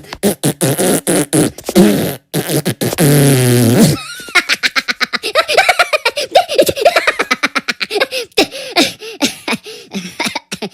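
Edited cartoon audio of Minion voices giggling and a fart sound effect, chopped into rapid stuttering repeats. A longer held fart-like sound comes near three seconds in, followed by a fast run of short, pitch-bending chirps.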